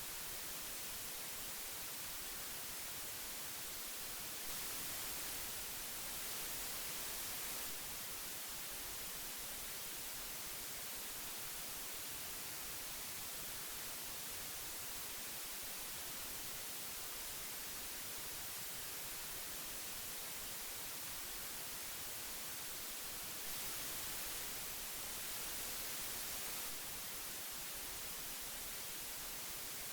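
Old magnetic tape hiss: a steady, even hiss strongest in the treble. It grows slightly louder and brighter for about three seconds twice, about five seconds in and again near 24 seconds, as the sound effect loops.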